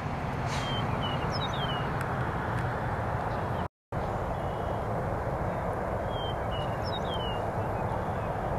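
Steady low rumble of jet engines across the airfield, with birds giving short falling chirps twice over it, near the start and again about two-thirds of the way in. The sound drops out for a moment about four seconds in.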